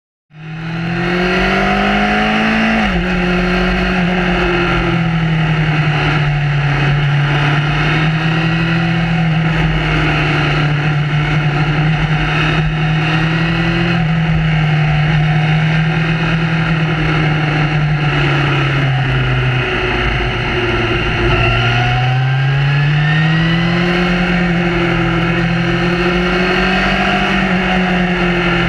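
Honda CB1000R's inline-four engine heard from the rider's seat while riding, over steady wind and road rush. The engine note climbs and then drops sharply about three seconds in, typical of an upshift. It holds fairly steady, sags around twenty seconds in as the bike slows, then rises again as it accelerates.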